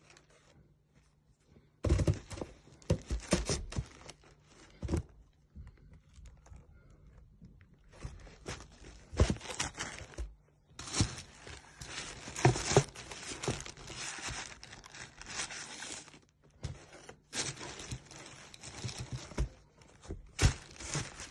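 Plastic packaging rustling and crinkling in irregular bursts as the sneakers are handled, starting about two seconds in, with a few sharper knocks.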